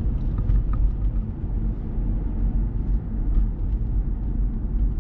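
Steady low rumble of a Mazda 6 being driven, its engine and road noise heard from inside the cabin.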